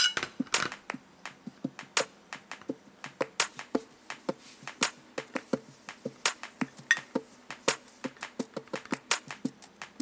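Ceramic plates being handled and wiped with a paper towel: quick, irregular clicking and tapping, several a second, with a louder clatter at the start as a plate is set down.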